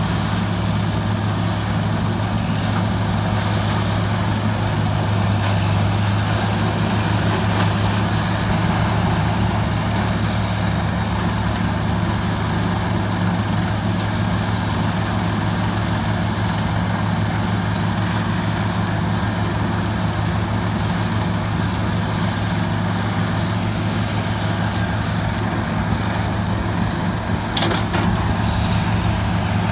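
Morbark 3200 horizontal track grinder's diesel engine running steadily with a deep, even hum. A faint high whine rises and falls about a third of the way in, and a short sharp click comes near the end.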